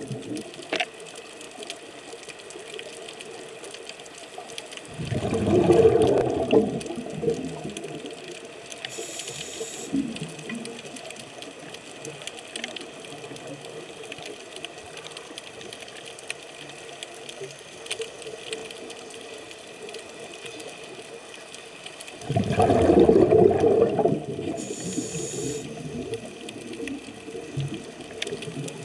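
Scuba diver breathing underwater through a regulator. There are two loud, bubbling exhalations, one about five seconds in and one about two-thirds of the way through, each followed shortly by a brief hiss of inhaling. Between them runs a steady faint underwater hiss.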